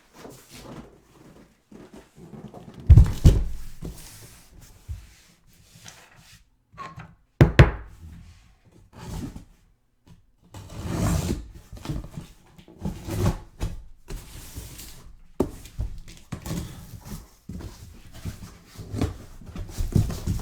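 Cardboard case being handled and opened. There are two heavy thumps, about three and seven seconds in, as it is set down or moved, then rustling, scraping and smaller knocks as boxes are worked out.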